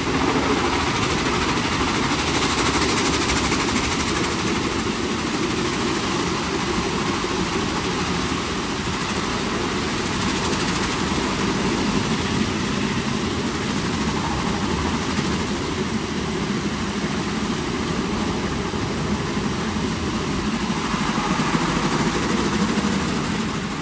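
WashTec SoftCare² Pro rollover car wash in its shampoo brush-wash stage: a steady rush of spraying water over the drone of the gantry's motors, falling away near the end.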